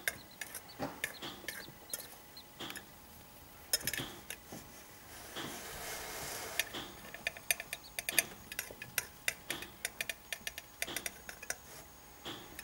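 Light clicks and taps on a small plastic feeding dish of pellets as feeding tweezers and corncrake chicks' bills peck at the food. A few scattered ticks become a quick run of many ticks in the second half, with a brief rustle just before.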